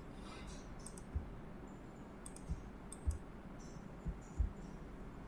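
Several scattered clicks of a computer mouse over a faint steady background hiss.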